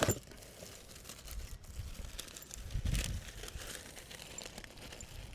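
Rustling, crinkling handling noise with a sharp click at the start and a few faint clicks, over an uneven low rumble.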